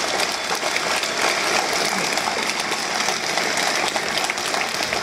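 A large crowd applauding steadily, a dense, even mass of hand claps.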